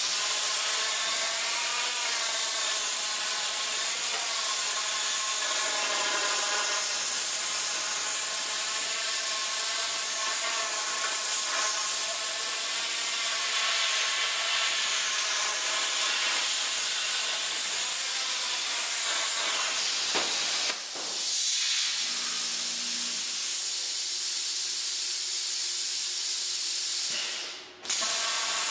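CNC plasma torch on a tube processor cutting square steel tube: a loud, steady hiss of the arc with a whining tone over it. The sound dips briefly about twenty seconds in and cuts out for a moment near the end, then resumes.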